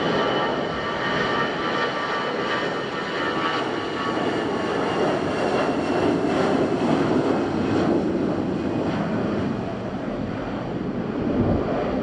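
Airbus A320-214's CFM56 jet engines at takeoff power as the airliner accelerates down the runway on its takeoff roll. A steady roar with a high fan whine, swelling about halfway through.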